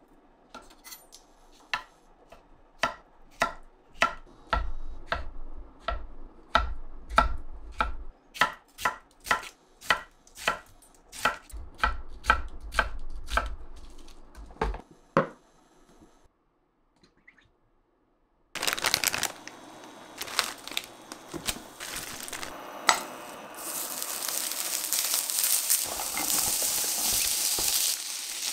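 Kitchen knife chopping on a cutting board in steady, evenly spaced strokes, about two a second. After a short break, food starts sizzling in a frying pan, louder in the last few seconds.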